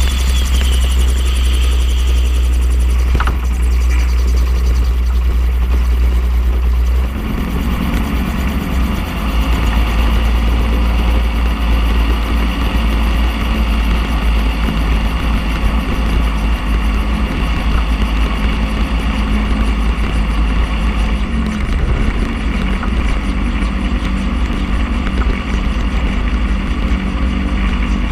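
Xenon gyroplane's engine and pusher propeller running steadily while it taxis over snow after landing, with a heavy low rumble on the outside-mounted microphone. The engine note changes about seven seconds in and again a little past twenty seconds.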